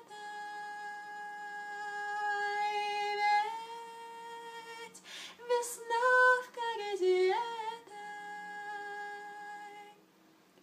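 A woman singing a cappella, a wordless hummed melody of long held notes, with a breath taken about five seconds in. The voice stops shortly before the end.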